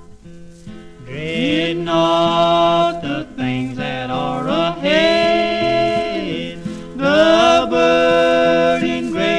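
Old-time gospel duet: guitar and mandolin play a short plucked intro, then two male voices come in singing together in close harmony about a second in, holding long notes over the strings.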